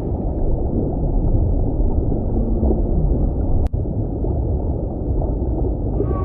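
Underwater whale recording: a steady rush of water noise with faint low whale moans, a brief dropout about three and a half seconds in, and a new rising-and-falling whale call beginning near the end.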